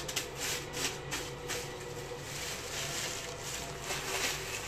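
Torn toilet paper crinkling and rustling as it is handled, with a quick run of crackles in the first second and a half and softer rustling after.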